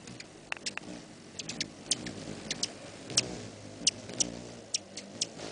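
Hummingbirds' wings humming as several hover and chase around a nectar feeder, the hum wavering in pitch and swelling as birds pass close. Many short, sharp, high chip notes are scattered through it, typical of hummingbirds squabbling at a feeder.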